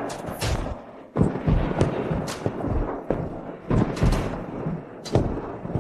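A rapid run of heavy thuds and sharp hits, several with a brief swishing tail, on a dramatic percussive sound-effect track.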